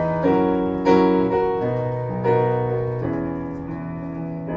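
Keyboard played live, sustained chords struck one after another, a new chord about every second.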